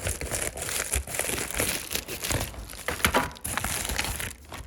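Packaging crinkling and rustling in irregular bursts as a delivered parcel is unwrapped by hand.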